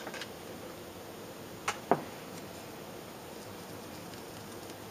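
Small clicks and taps from handling a little glass paint jar and a paintbrush on a tabletop: one sharp click at the start and two more close together about two seconds in, over a steady low hiss.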